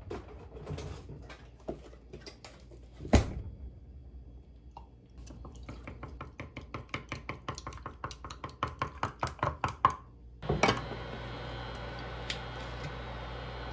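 Wooden chopsticks whisking beaten eggs in a glass measuring jug, clicking against the glass, with one louder knock about three seconds in and then a fast, even rhythm of about six clicks a second that grows louder. Near the end a thud is followed by a steady hum.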